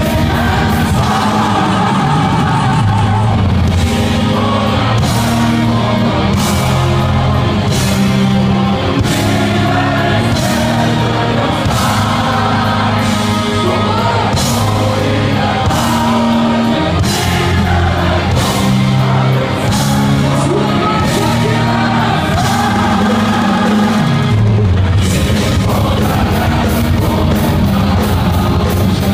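Power metal band playing live: a male singer over distorted electric guitar and drums keeping a steady beat, heard loud in a concert hall.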